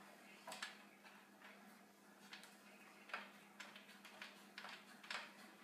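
One-handed bar clamp being squeezed tight on a freshly glued wooden rocking-chair arm: a run of quiet, irregularly spaced clicks.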